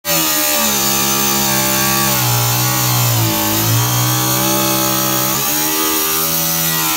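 Cordless angle grinder with a cutting disc slicing through a truck's steel hood bracing, its motor running steadily. The pitch sags briefly about three seconds in as the disc bites and then recovers.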